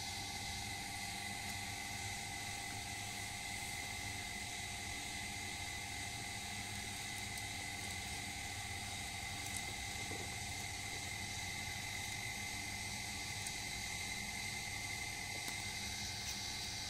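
Steady background hiss with a few faint, even tones running under it, and a couple of soft clicks about ten seconds in.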